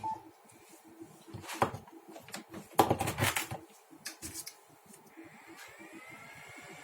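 A short beep, then a series of clicks and knocks from switches, knobs and equipment being handled, loudest in a cluster about three seconds in. A faint wavering tone starts near the end.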